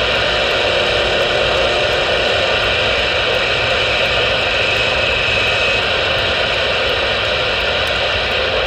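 CB radio on AM channel 6 with no one transmitting, giving out a steady hiss of static with a few faint steady tones under it.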